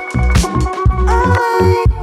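Background music with a steady, punchy bass beat.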